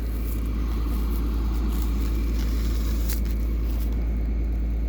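Tractor engine running steadily at a low, even rumble, with a brief click about three seconds in.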